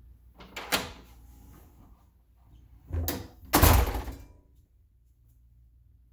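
Hotel room entry door being shut: a sharp knock about a second in, then two loud thuds about half a second apart around three seconds in, the second the heavier.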